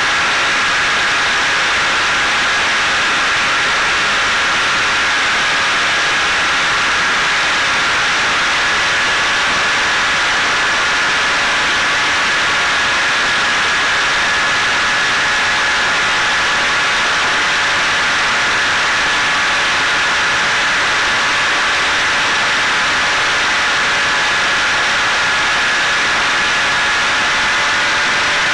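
Electric motor and propeller of a Caipirinha 2 fixed-wing FPV drone in cruising flight, picked up by its onboard camera: a steady whine over a constant rush of wind.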